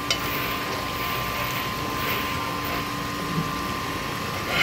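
Yellowtail head offcuts and kuruma prawns frying in a large aluminium pan: a steady sizzle under a constant drone with a faint steady hum.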